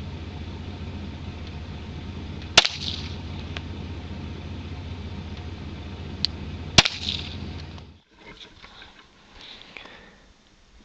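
Two pistol shots about four seconds apart, sharp cracks of handloaded .40 S&W rounds being test-fired, over a steady low rumble.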